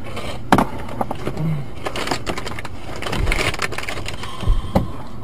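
Scattered clicks and knocks inside the cabin of a car that has just crashed and come to rest, over a steady low background noise; the sharpest knock comes about half a second in, with a few more near the end.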